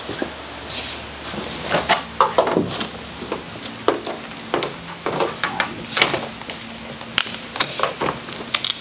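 Irregular knocks, scrapes and rustles as a Geo Tracker's top panel is pulled and worked loose by hand, with its torn backing material crinkling.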